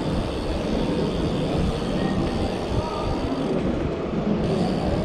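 Steady rumbling noise of a BMX bike rolling over paving, with wind on the microphone.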